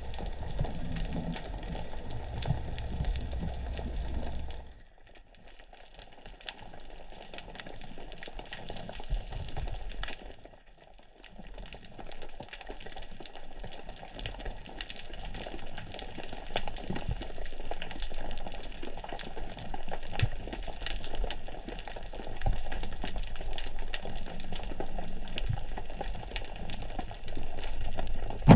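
Underwater reef ambience heard through a camera housing: a steady crackling haze of many fine clicks. A low rumble of water movement runs under it and cuts out about five seconds in.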